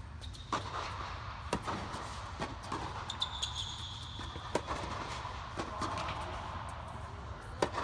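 Tennis rally on an indoor hard court: sharp racket-on-ball hits and ball bounces at irregular intervals, the loudest hit near the end, with a short high squeak about three seconds in, over a steady low hum.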